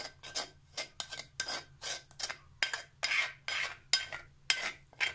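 Metal spoon scraping around a mortar, gathering up freshly ground mint and green chili chutney: a quick series of short rasping scrapes, two or three a second.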